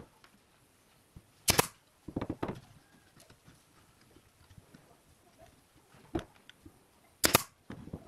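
Pneumatic brad nailer firing twice, about six seconds apart, each a sharp crack. Softer wooden knocks from the pine frame being handled on the bench come between and after.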